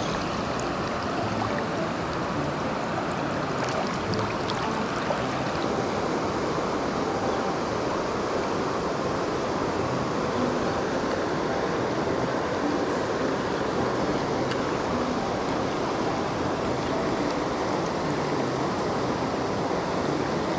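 A fast mountain river rushing steadily, its current running high with the water just starting to recede after a rise.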